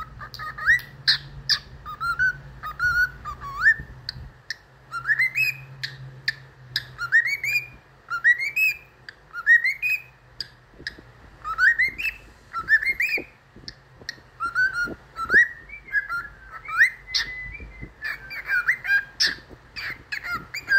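Cockatiel whistling: a string of short rising whistles with sharp chirps between them, the whistles coming at about one a second through the middle.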